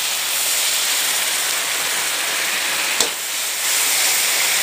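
Sambal paste of onion, tomato and red chilli sizzling in hot oil in a steel wok as a metal spatula stirs it, a steady hiss with one sharp knock about three seconds in.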